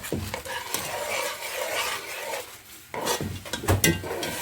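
A spoon stirring sesame seeds toasting in oil in a pot, scraping steadily, with a few sharp knocks against the pot about three seconds in.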